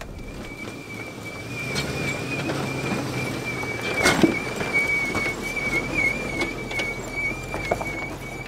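GMC Yukon's wheels screeching as it creeps over a rocky dirt track: one steady high squeal that wavers slightly in pitch, over the low running of the engine and tyres. Small knocks from the rocks are heard, with one sharp knock about four seconds in.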